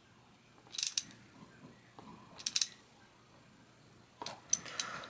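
Socket ratchet clicking in three short runs of ticks as it tightens the lock nut down on a bicycle pedal spindle.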